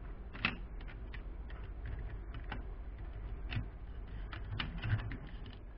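Irregular small clicks and taps of hard plastic toy-truck parts being handled and fitted together, several a second, with a sharper click about half a second in and a few more later, over a low steady hum.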